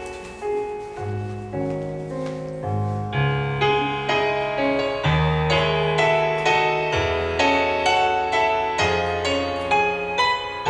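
Piano playing an instrumental introduction: struck chords and melody notes that fade, over held low bass notes, growing fuller from about three seconds in.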